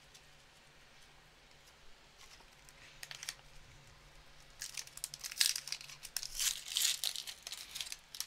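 Foil wrapper of a 2020-21 Upper Deck Series 2 hockey card pack being torn open and crinkled: a few crackles about three seconds in, then a dense run of crinkling through the second half.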